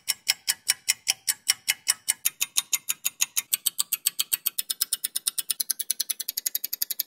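Rapid, evenly spaced clock-like ticking, starting at about five ticks a second and speeding up to about eight a second toward the end.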